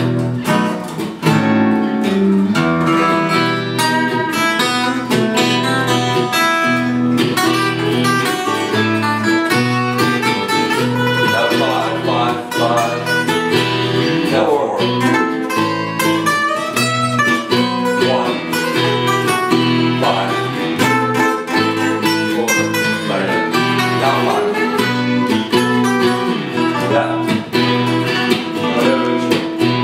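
Gibson SJ-200 acoustic guitar picked in a lively tune, with a Fender electric 12-string guitar playing along.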